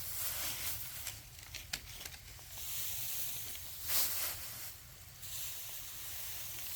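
Dry rustling and swishing, with a few sharp clicks and a louder swish about four seconds in.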